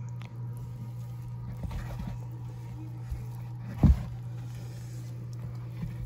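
Hand digging through damp compost bedding in a worm bin: soft rustling and scraping, with one sharp thump about four seconds in, over a steady low hum.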